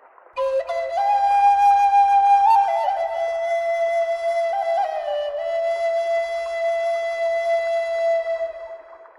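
Slow, solo bamboo flute melody: a phrase that rises and turns with small ornamental steps, then settles on a long held note that fades near the end.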